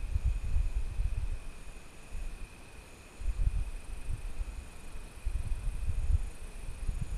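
Wind buffeting the microphone in gusts, over a steady high insect trill, like crickets in the grass.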